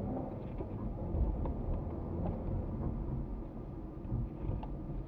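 Low, steady rumble of a car's engine and tyres heard from inside the moving car, with faint light ticks now and then.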